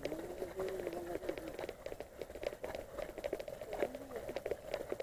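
Footsteps of people walking on a muddy track, a scatter of soft clicks and scuffs, over a faint steady hum; a faint wavering voice-like tone sounds in the first second and a half.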